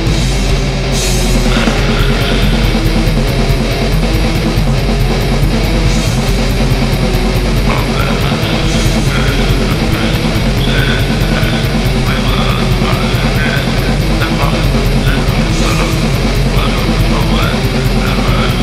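Loud hardcore punk music: distorted electric guitars over a drum kit, playing without a break.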